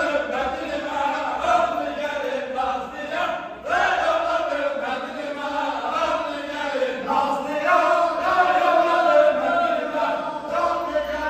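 A group of men's voices singing a Turkish folk song (türkü) together, continuous and loud, with a brief dip about three and a half seconds in.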